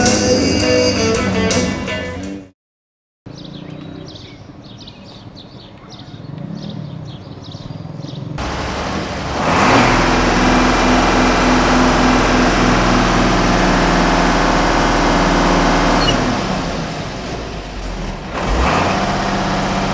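Music for the first two seconds, then after a short quiet stretch the diesel engine of an old Mercedes-Benz fire truck running steadily, heard from inside its cab, dipping briefly near the end and picking up again.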